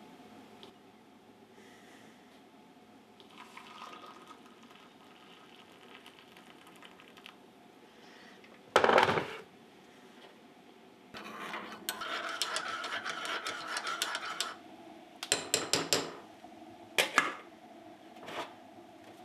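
Kitchen handling sounds at a stainless-steel sink with a mug and a small bottle: one loud knock about nine seconds in, a few seconds of steady noise, then a quick run of clicks and taps with two more single clicks near the end.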